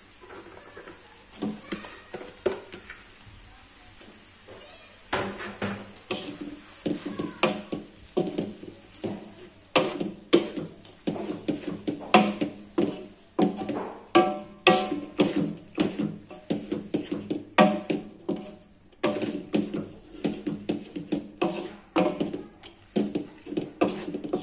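Wooden spatula scraping and knocking against a metal wok as noodles and vegetables are stirred and tossed. It is quiet at first; from about five seconds in come irregular scrapes and knocks, about one or two a second, some with a short metallic ring.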